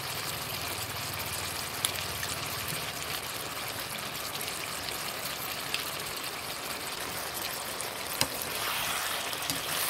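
Pork belly cubes sizzling steadily in a wok in hot oil, with a few sharp pops; the sizzle grows a little louder near the end.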